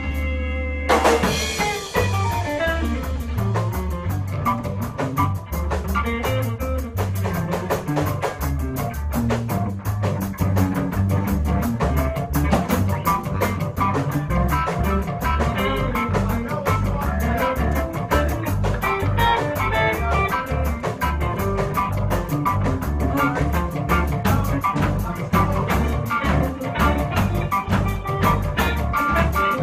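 Ska band playing an instrumental passage with drum kit, bass and guitar in a steady upbeat rhythm and no singing. The full band comes in together about a second in.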